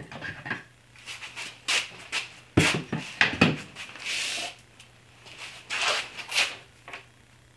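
Hand tools being handled at a workshop tool wall and bench: a series of irregular knocks and clatters, the sharpest about two and a half seconds in, with a short scraping rub about four seconds in.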